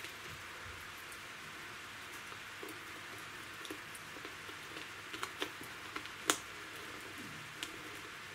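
Small dry rustles and clicks of bark pieces being pressed and tucked by hand around an orchid's base in its pot, over a faint steady hiss, with one sharper click about six seconds in.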